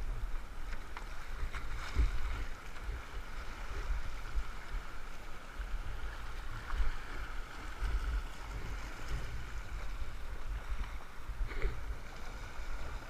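River water rushing and splashing around the raft, with an uneven low rumble of buffeting on the microphone.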